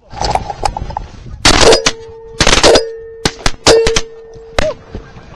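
A rapid, ragged volley of many shotgun blasts from several hunters firing at once at a passing flock of Canada geese, the loudest shots packed into the middle seconds and the last one coming near the end.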